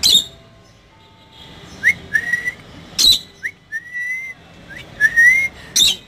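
Lovebirds calling: three sharp, shrill chirps spread across a few seconds, with three clear whistled notes between them, each a short upward slide into a held tone.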